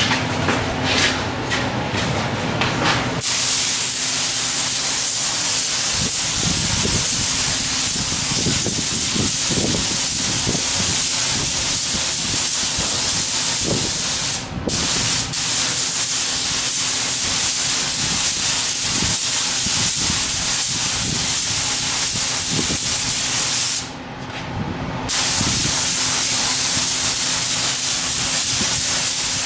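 Compressed-air gravity-feed paint spray gun spraying car paint: a loud, steady hiss that starts about three seconds in and stops briefly twice, around the middle and again a few seconds before the end, as the trigger is let off. A faint steady low hum runs underneath.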